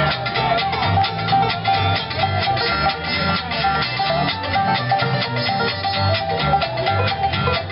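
Bluegrass band playing: fast picked string instruments over a steady, pulsing bass line.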